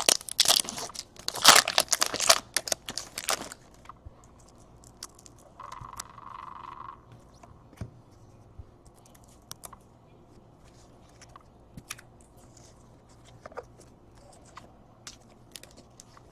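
A foil trading-card pack wrapper is torn open and crinkled for the first three seconds or so. Then come soft scattered ticks of cards being handled, with a short steady tone about six seconds in.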